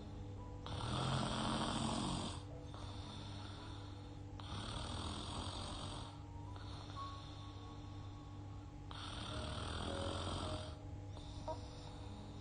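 A young woman snoring in her sleep while breathing through her open mouth, a rasping snore with each breath every few seconds. The snore about a second in is the loudest.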